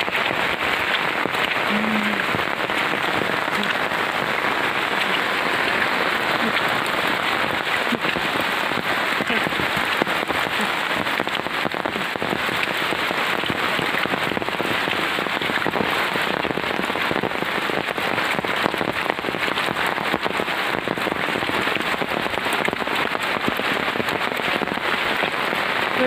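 Steady rain falling, an even hiss of drops with no break.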